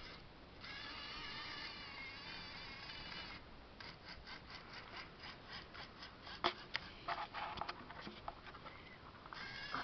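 Small electric motors of a radio-controlled toy tank whining with a wavering pitch for about three seconds, then a run of irregular small clicks and taps with one sharper knock about six and a half seconds in, and the whine returns near the end.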